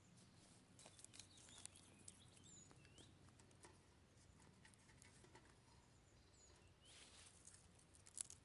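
Small dry twigs snapping and crackling as they are broken by hand, in scattered light clicks, the sharpest one near the end. A few short bird chirps sound in the background.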